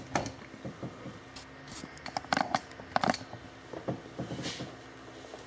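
Handling noise: scattered soft knocks, taps and rustles as the camera and a small portable keyboard are shifted about, over a faint steady hum.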